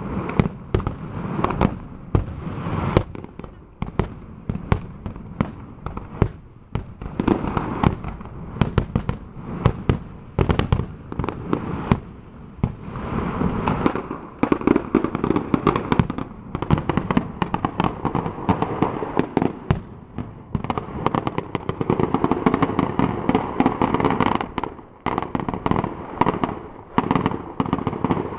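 Fireworks going off in a rapid, continuous barrage of bangs and crackles, several explosions a second with rumbling between them.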